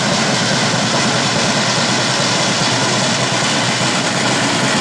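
Large crowd of spectators cheering steadily, a dense loud roar.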